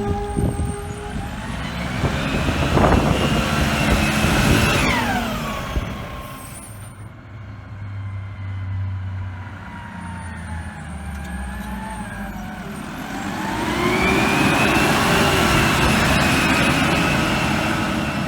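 Garbage truck's brakes squealing twice with a high, wavering tone that slides down in pitch as each squeal dies out. Between the squeals the truck's diesel engine runs low.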